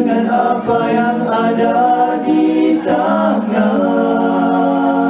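A cappella vocal group singing nasyid in close harmony, holding long chords that shift every second or so, with no clear words.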